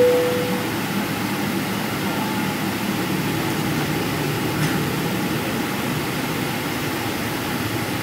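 Steady cabin rumble inside a Boeing 777-300ER taxiing, from its GE90-115B engines and the airflow. A single ringing tone fades out in the first second, and a faint tick comes about halfway through.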